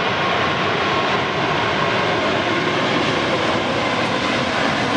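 Boeing 777-200ER's twin jet engines at takeoff thrust during the takeoff roll: a loud, steady rushing noise.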